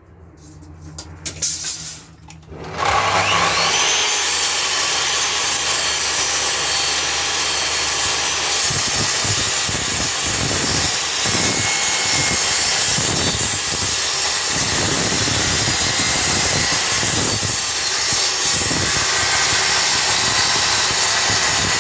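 Electric miter saw running and cutting walnut: a few clicks and a low hum at first, then about three seconds in a loud, steady saw noise sets in and carries on, with a low rhythmic pulsing from the blade working through the wood.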